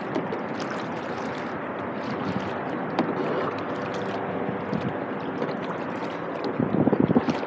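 Water splashing and lapping around a plastic sit-on-top kayak as it is paddled, with scattered drips and small splashes from the paddle blade. There is a louder splashing stretch near the end.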